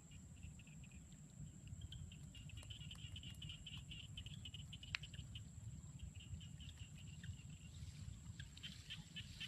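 Insects, crickets by the sound of it, chirping in rapid pulsed trills, over a low rumble and a steady high-pitched whine. A single sharp click comes about five seconds in.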